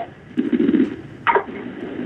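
Garbled, distorted noise coming over a conference-call phone line. A buzzy low drone starts and stops in chunks, and a quick downward-sweeping squeal comes a little past halfway.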